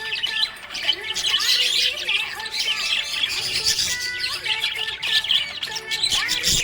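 Budgerigars chirping and chattering without a break, a dense run of quick high chirps and squeaks.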